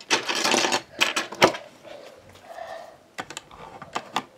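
Plastic Lego bricks being handled: a second of rattling as pieces are rummaged through, then a few sharp clicks as bricks are pressed together.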